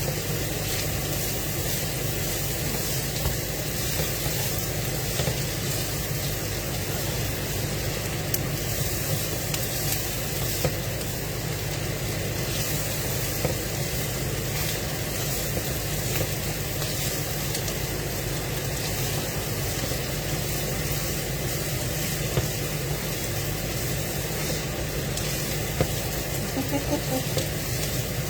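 Meat and vegetables sizzling steadily in a frying pan over a constant low hum, with a few faint light clicks.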